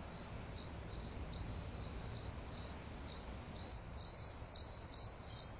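A cricket chirping at one steady high pitch, about two or three short chirps a second, over a faint low background noise.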